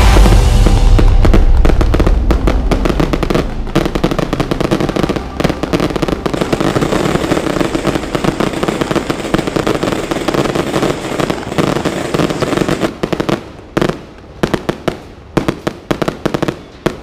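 Fireworks and firecrackers going off in a dense, rapid crackle, thinning to separate sharp bangs with short gaps near the end.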